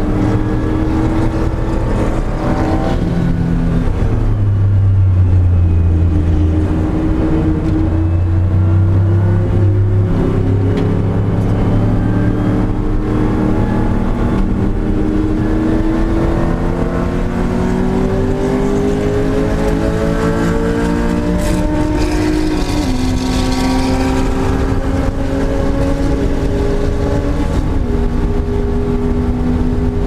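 Porsche 911 SC's air-cooled 3.0-litre flat-six under hard racing acceleration, heard from inside the cabin. The engine note climbs steadily in pitch through each gear and drops sharply at the upshifts, about two-thirds through and again near the end.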